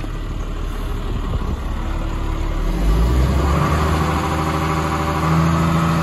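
Tractor diesel engine running. About three seconds in it takes up load and its revs rise as the PTO is engaged to drive the mixing augers of a Kverneland Siloking feeder wagon, and a higher drone joins the engine note.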